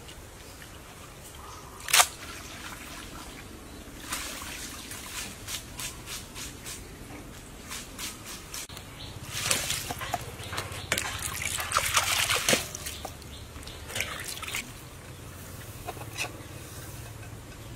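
Wet food-preparation handling: aloe vera gel and water trickling and dripping among scattered taps and clicks of bowls and a metal pot. A sharp click comes about two seconds in, and the wettest, busiest stretch falls about halfway through.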